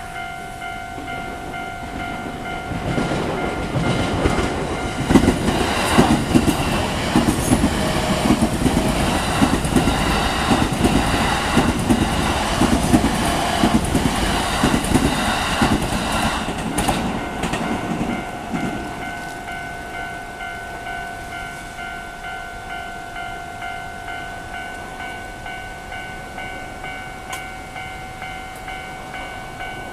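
A train passes over a level crossing, its wheels clacking over the rail joints. The sound builds about three seconds in and dies away around eighteen seconds. Under it the crossing's warning signal rings steadily, and it is heard plainly before and after the train.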